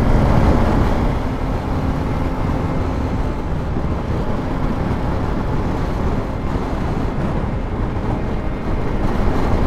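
Steady wind rush and road noise from riding a BMW G310 GS single-cylinder motorcycle at highway speed, with the engine humming under the wind.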